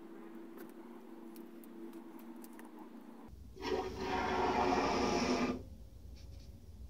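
Aerosol can of Unibond No More Gaps expanding foam hissing as foam is sprayed out through its straw applicator, for about two seconds in the middle, then stopping.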